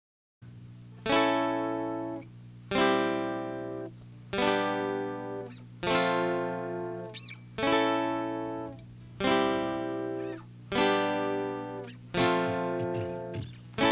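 Acoustic guitar intro: eight strummed chords, about one every second and a half, each struck sharply and left to ring out and fade before the next.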